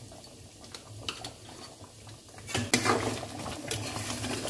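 Metal spoon stirring a thick curry in a steel kadai, scraping and clinking against the pan. After a few faint clicks the stirring starts about halfway through, louder, with sharp clinks.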